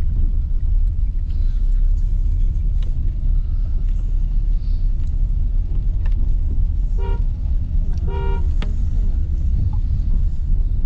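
Steady low road and engine rumble inside a Mahindra XUV700 driving slowly in snowfall, with two short vehicle-horn toots about seven and eight seconds in, the second a little longer.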